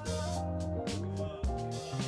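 Background music with a bass line, a melody and drums.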